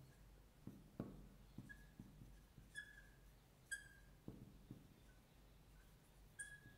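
Very faint marker writing on a glass board: scattered light taps and several short squeaks of the tip on the glass.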